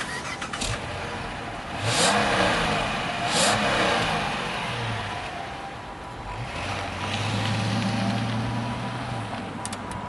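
Chrysler 300 sedan's engine and exhaust revved in two quick blips, about two and three and a half seconds in, then pulling away with a steady engine note that dies down near the end.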